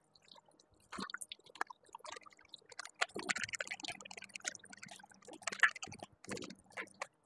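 Irregular kitchen clatter and water sounds: a spoon stirring and clinking in a small steel bowl as coconut milk powder is mixed into hot water, and dishes being rinsed at a sink, busiest from about three seconds in.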